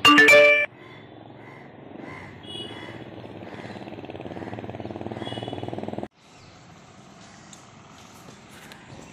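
A vehicle horn honks loudly for under a second. Then a motorcycle engine grows steadily louder as it approaches and cuts off suddenly about six seconds in, leaving quieter street background. Birds chirp briefly a couple of times.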